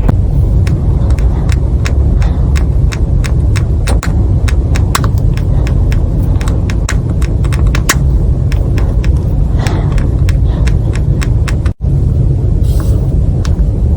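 Inside a moving Toyota Noah (80 series) minivan, a steady road rumble with many irregular sharp clicking ticks. The ticks are the abnormal noise traced to the steel-plate section of a body pillar.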